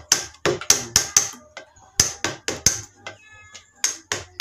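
Wood chisel being hammered into a timber beam, cutting a row of notches: sharp blows about three to four a second, with a short pause about two-thirds of the way through.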